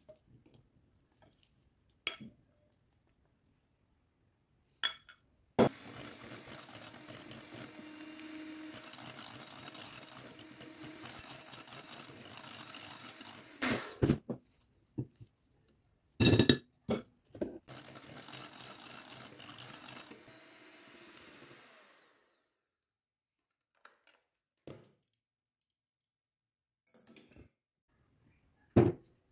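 Electric hand mixer running steadily for about fifteen seconds, beating cream in a glass bowl, then winding down. Sharp knocks and clinks against the glass bowl come before, during and after the run.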